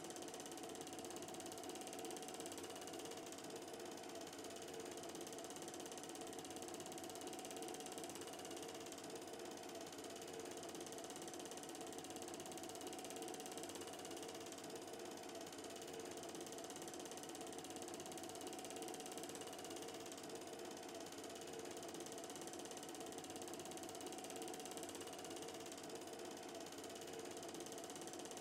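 Film projector running: a steady, fast mechanical clatter of the film-advance mechanism with a constant hum, and no soundtrack music.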